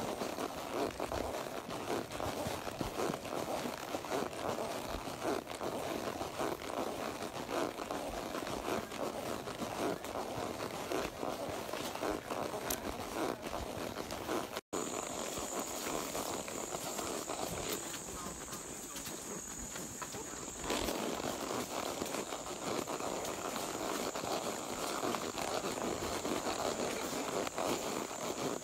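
Hoof falls of a horse on the move, with a running outdoor rustle. About halfway the sound drops out for an instant; after that a steady, high-pitched insect buzz runs through the rest.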